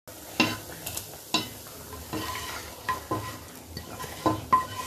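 Wooden spatula scraping and tapping against a nonstick frying pan as hot fried-onion tempering is pushed out of it into a pot of dal, with a light sizzle. The taps come one at a time, about eight in all.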